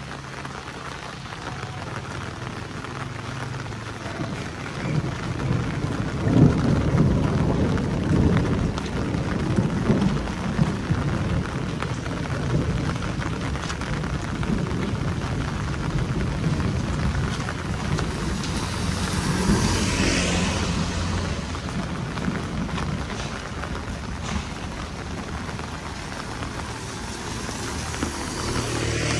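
Heavy rain falling steadily, with a long rumble of thunder that swells about a fifth of the way in and fades over several seconds.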